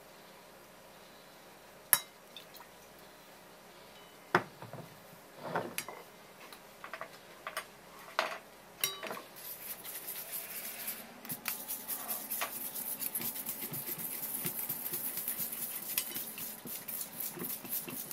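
A small wire whisk beating thick miso dressing in a stainless steel bowl, a quick steady run of scraping, clinking strokes through the second half. Before that come a few separate clinks and knocks of utensils against the metal bowl.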